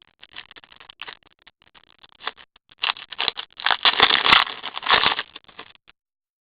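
Trading card pack wrapper being handled and torn open, with scattered small crackles at first, then dense crinkling and tearing for about two seconds in the middle. It stops shortly before the end.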